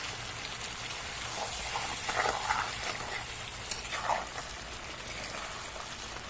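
Pork frying in a pan with a steady sizzle, with a few brief louder scrapes or clatters about two and four seconds in.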